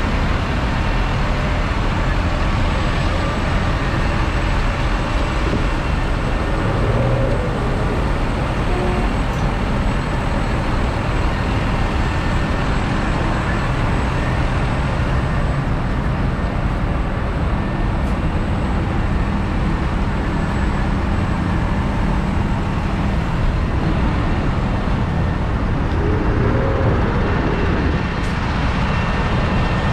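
Claas Arion 660's 6.8-litre six-cylinder diesel engine idling steadily.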